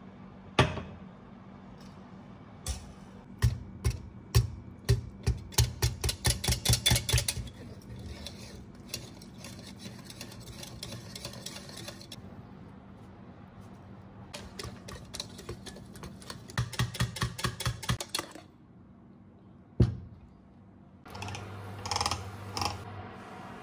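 Wire whisk beating batter in an enamel jug: two bursts of quick, even clinking strokes, several a second, each lasting a few seconds. Near the end, a knife scrapes softly against the waffle plate while spreading butter.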